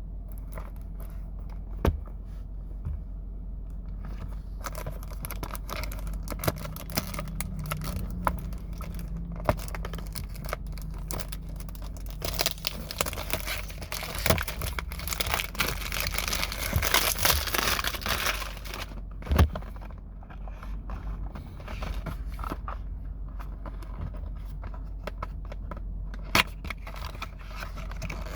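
Packaging on a boxed bottle of cologne being torn open and crinkled by hand, with scattered clicks and a few sharper knocks as the box is handled. The rustling is densest midway through.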